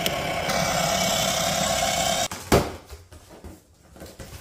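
Kalee 6-volt battery-powered ride-on toy ATV driving on asphalt: its small electric motor and gearbox whine steadily while the hard plastic wheels roll, cutting off suddenly a little over two seconds in. A single knock follows, then quiet room sound.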